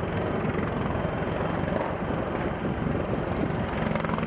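AH-64 Apache attack helicopter in flight, its rotors and engines making a steady, dense beating noise.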